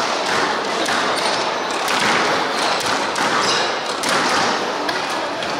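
Squash ball in play: a few sharp thuds of racket strikes and the ball hitting the court walls.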